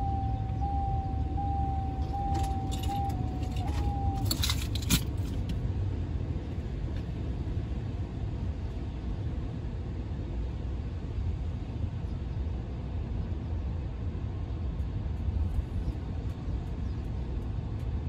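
Ford E-350 camper van's engine running at idle after a jump start, a steady low rumble. For the first four seconds a thin, steady high tone sounds over it, and keys jingle and click between about two and five seconds in.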